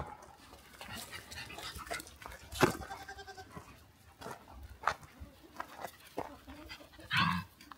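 Goats bleating: two short calls, the louder one near the end, with a few light knocks between them.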